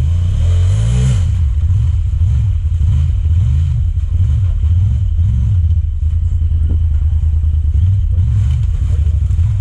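Side-by-side UTV engine revving up and down again and again under load as the machine pushes through a deep muddy rut.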